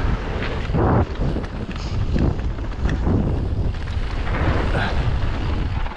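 Wind buffeting the microphone of a mountain biker's onboard camera on a fast descent, mixed with the knobby tyres rolling and skidding over loose dirt and gravel and the bike rattling over bumps.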